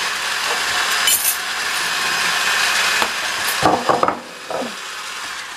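Hand-cranked rotary egg beater whisking eggs, a steady mechanical whirring that stops about four seconds in, followed by a few light knocks.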